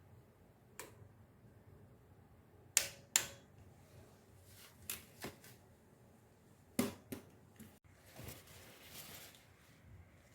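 Scattered sharp clicks and knocks, several in close pairs, with a soft rustle about eight seconds in.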